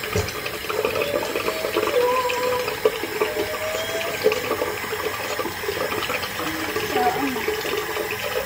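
Bathroom sink tap running steadily, water pouring and splashing into the basin.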